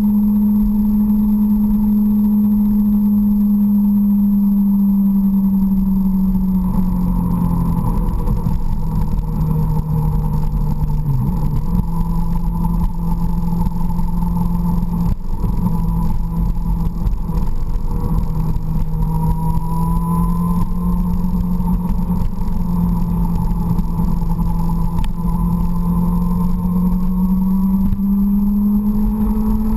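Sport motorcycle engine running at a steady cruising pitch under a constant low rush of wind and road noise; the engine note drops about seven seconds in, holds lower through the bends, and climbs again near the end.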